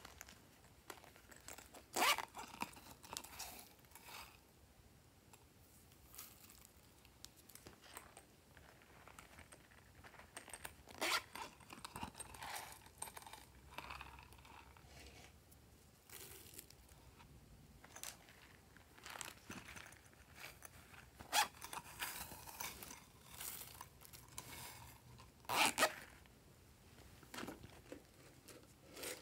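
Intermittent crinkling, rustling and light scraping from hands opening small plastic containers and shaking sprinkles and sequins onto slime, with a few louder crackles spread through.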